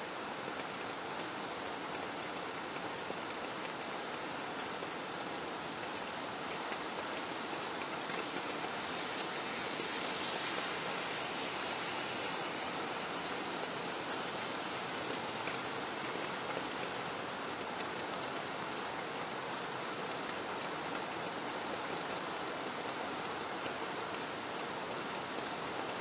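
Steady rain, an even hiss of falling drops that does not change.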